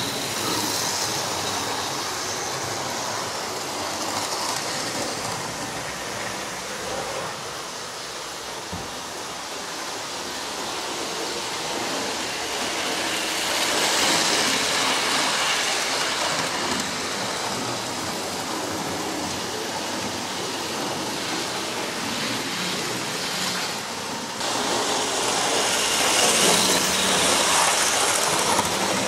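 Non-digital model railway trains running on the track: a steady whirr and rattle of the locomotive motor and the wheels over the rails. It grows louder as a train passes close, once about halfway and again for the last few seconds.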